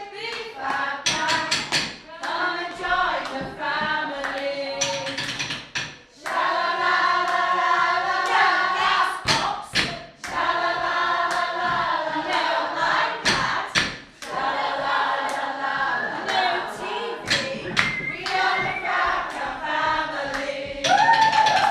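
A group of women singing together unaccompanied, with brief breaks between phrases and a few sharp claps or knocks over the singing.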